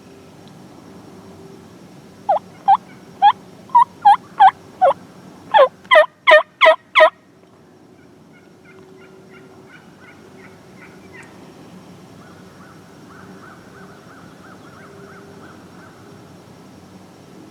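A series of about a dozen loud turkey yelps, at about two a second and then quicker and louder near the middle, followed by fainter, quicker turkey calling.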